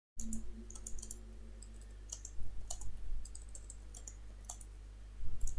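Computer keyboard keys clicking as a short sentence is typed, in irregular runs of keystrokes.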